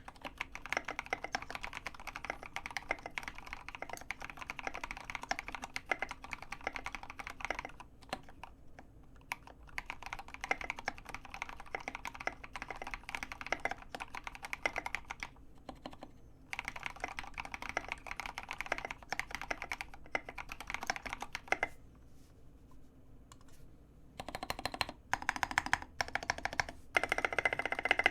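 Fast typing on a mechanical keyboard with lubed Gateron Yellow linear switches on 70 g springs, an acrylic plate and tall SA-profile keycaps: a dense run of key clacks broken by a few short pauses. The strikes are louder and denser in the last few seconds.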